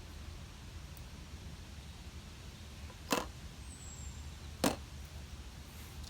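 Two sharp taps, a second and a half apart, as plastic bottle caps are set down on a peanut-can tic-tac-toe grid, over a steady low rumble.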